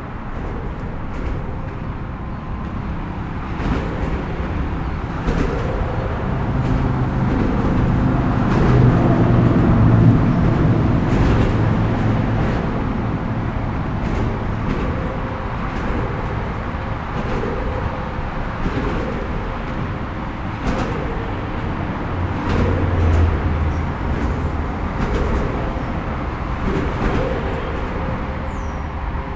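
Road traffic with vehicles passing: a heavy engine rumble swells to its loudest about ten seconds in and again near the end, over a steady traffic noise with frequent short knocks.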